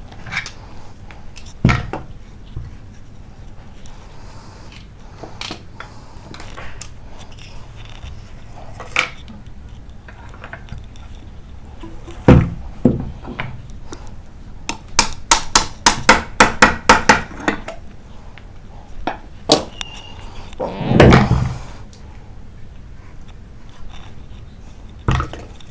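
Metal knocks and clinks of hand tools working on a jammed, rusted water pressure pump, scattered through the stretch, with a quick run of about a dozen even clicks in the middle and a longer rustling burst about three quarters of the way in.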